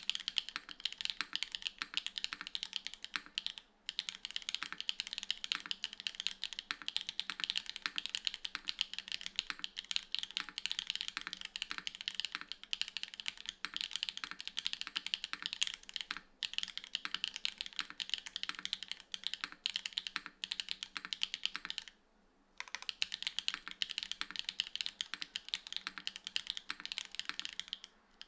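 Fast continuous typing on a Tofu65 3.0 mechanical keyboard with TTRed linear switches, GMK Darling R2 keycaps and an aluminium plate, gasket-mounted with no foam. It pauses briefly about 4 and 16 seconds in, and for about a second near 22 seconds.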